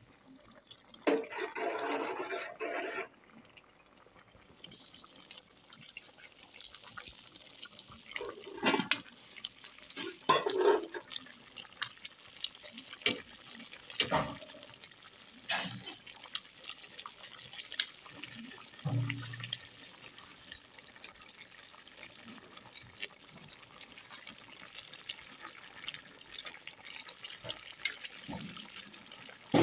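Seasoned chicken pieces simmering in their own juices in a stainless steel pot, with no water added, giving a steady faint bubbling hiss. A metal spoon stirs them, with scattered knocks and scrapes against the pot and a louder burst of noise about a second in lasting around two seconds.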